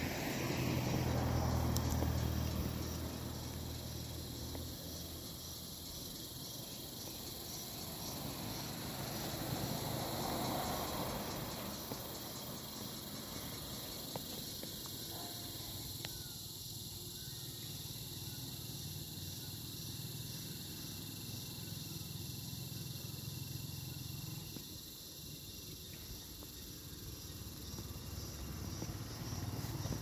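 A chorus of cicadas keeps up a steady, high-pitched, pulsing buzz. A low rumble swells near the start and builds again toward the end.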